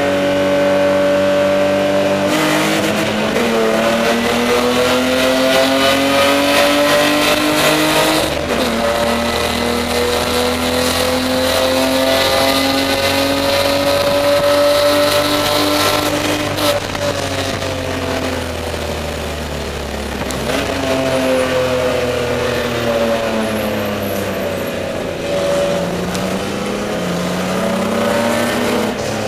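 Spec E30 BMW race car's engine heard from inside the stripped cabin, running hard under acceleration. Its pitch climbs through each gear and drops sharply at several gear changes.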